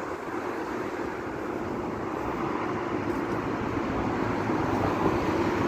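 Steady city traffic noise: a continuous rumble of road vehicles that grows slightly louder toward the end.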